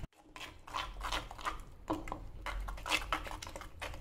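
Metal spoon stirring and scraping a thick, wet masala paste in a terracotta bowl, in a run of uneven strokes, working turmeric and coconut oil into the ground paste.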